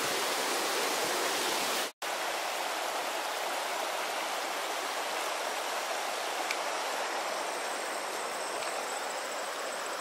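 Shallow, rocky river running over stones: a steady rushing of water, with a momentary break about two seconds in.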